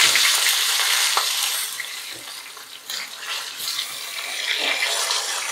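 Catla fish steaks sizzling and crackling in hot oil in a non-stick frying pan as they are turned over with a silicone spatula. The sizzle is loudest for the first second or so, eases off, then picks up again.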